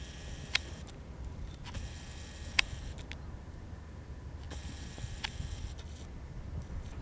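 Camera lens motor whirring in three short bursts, each with a sharp click, over a low wind rumble on the microphone.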